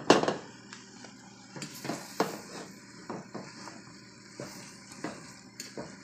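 Wooden slotted spatula scraping and knocking against a metal pan, stirring grated coconut cooking in brown-sugar syrup; irregular strokes, the loudest right at the start.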